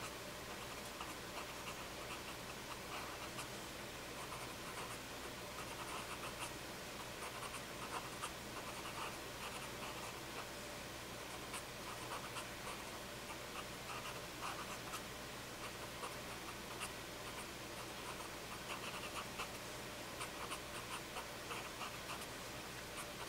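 Cotton swab rubbing and blending graphite on drawing paper: faint, scratchy brushing in short, irregular strokes.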